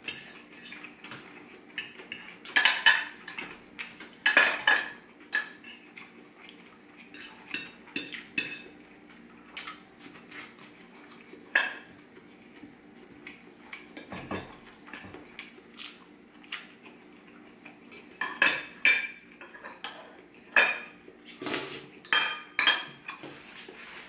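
A metal fork and knife clinking and scraping against a ceramic dinner plate while chicken rice is eaten. The strokes come irregularly, with louder clusters of clinks a few seconds in and again near the end.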